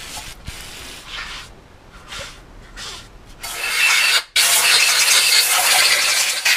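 A few short, faint sprays from an aerosol can of brake cleaner, then a compressed-air blow gun hissing loudly onto the cylinder head for about three seconds, with a brief break partway through.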